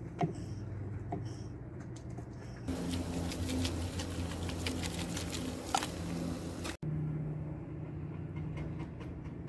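A couple of knife strokes knocking on a wooden cutting board as zucchini is chopped, then ground meat sizzling and crackling in a cast-iron skillet on a propane camp stove, which cuts off suddenly near the end. A steady low hum runs underneath.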